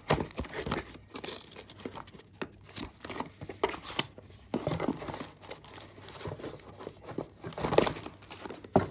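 Cardboard packaging being handled: a small paperboard product box turned in the hand and a corrugated shipping box flap bent, giving irregular crinkling, rustling and scraping, loudest a little before the end.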